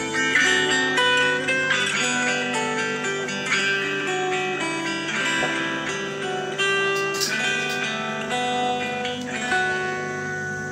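Background music played on a plucked guitar, fading toward the end.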